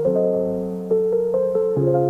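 Background music: a keyboard piece of held chords over a bass line, the chords changing about once a second.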